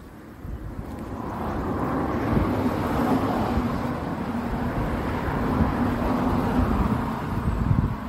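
A vehicle going by: a steady engine hum over a hiss, building over the first couple of seconds and easing off near the end, with some wind rumble on the microphone.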